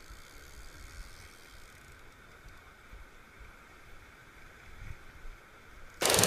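Faint, muffled background with a few low thumps. About six seconds in, the loud, even rushing of a mountain stream cuts in abruptly, close to the water.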